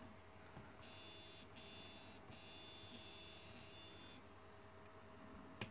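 Stepper motor on a DRV8825 driver running, heard as a faint high whine in several steady tones that starts about a second in, breaks briefly twice and stops about four seconds in, while its microstep setting is changed on the driver's DIP switches. A single sharp click near the end.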